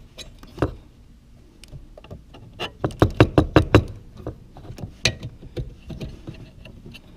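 Sharp clicks and light knocks as a hand handles the brass water-supply fitting on a dishwasher's inlet valve and the sheet-metal frame around it, with a quick run of about eight clicks about three seconds in.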